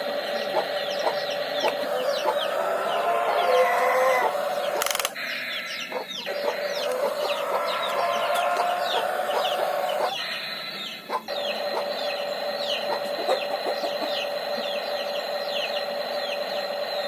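Many birds chirping, a dense run of short, quick, falling chirps over a steady whine, broken off abruptly twice.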